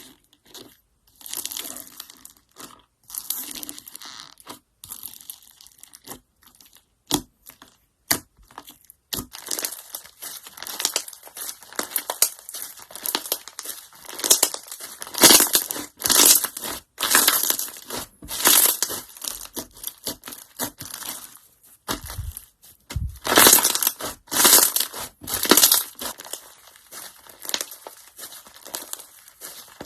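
Slime being squeezed and pressed by hand, giving irregular bursts of crackling and crunching. The sounds are sparse at first and come thicker and louder from about nine seconds in.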